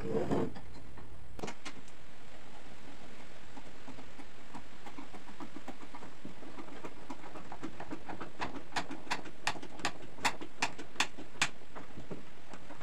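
Wire stitch on plywood boat hull panels being twisted tight with pliers: a knock at the start and another about a second and a half in, then a fast run of small clicks and scrapes that turns into sharp ticks about three a second near the end.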